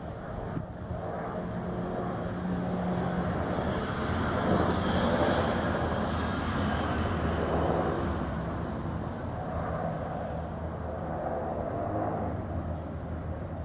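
A distant engine drone with a low steady hum, swelling to its loudest about five seconds in and then slowly fading.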